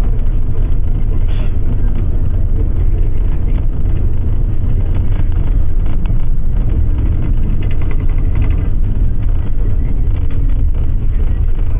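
Steady low engine and road rumble heard from inside a vehicle moving along a highway.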